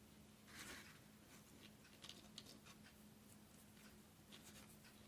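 Near silence: faint rustling and a few light ticks of twine and greenery being handled while a knot is tied, over a faint steady low hum.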